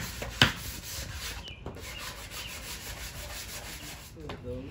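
A hammer strikes a wooden frame once, sharply, about half a second in, following a run of strikes, then a lower steady rubbing noise with faint regular ticks continues.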